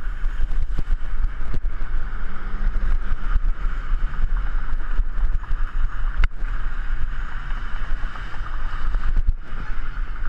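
Steady wind and road rumble on a GoPro carried on a moving bicycle, with frequent small knocks and rattles and a sharper knock about six seconds in.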